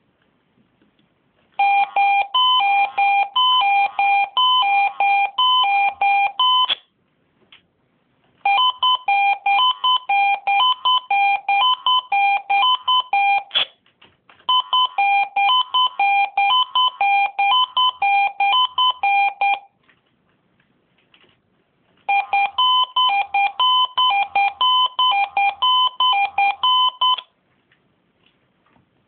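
Swissphone Quattro 96 fire-service radio pager sounding its test alarm: rapid beeps alternating between two pitches, in four bursts of about five seconds each with short pauses between.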